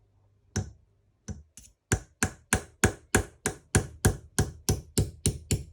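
A screwdriver being tapped to drive out the pinch-collar screw holding a model nitro engine's carburettor: a few single taps, then a steady run of light sharp taps at about three to four a second.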